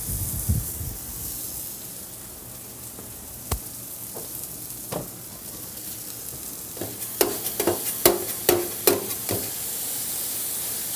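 Ground chicken sizzling on a hot griddle top while metal spatulas clink and scrape on the plate as the meat is chopped up. There are a few single clinks, then a quick run of sharper, ringing clinks about two-thirds of the way through.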